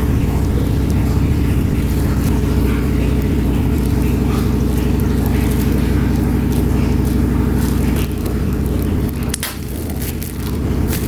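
Chicken drumettes sizzling in a grill pan, a hiss with small scattered crackles, over a loud, steady low hum that eases off about eight seconds in.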